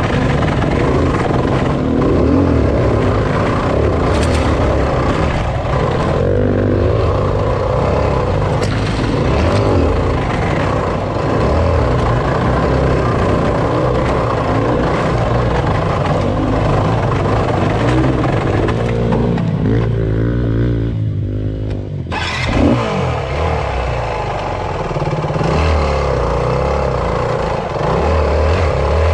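Enduro dirt bike engine heard from the bike itself while riding a rocky trail, the engine note rising and falling with the throttle. The higher part of the sound drops away for a moment about two-thirds of the way through, then the engine picks up sharply again.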